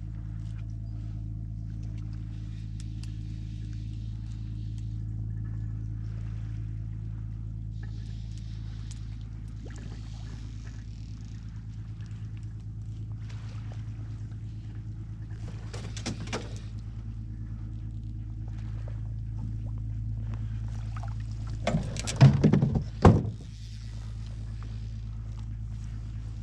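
Steady low drone of a boat motor running, with two short louder noises, one about two-thirds of the way in and a stronger one near the end.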